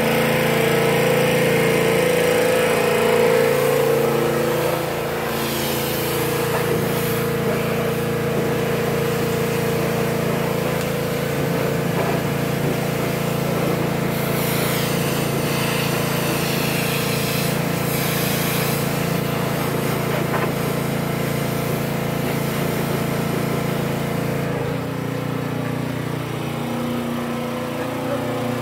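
Pressure washer's small engine running steadily, with the hiss of the spray coming and going twice as the wand is aimed at the trucks; the engine's note shifts near the end.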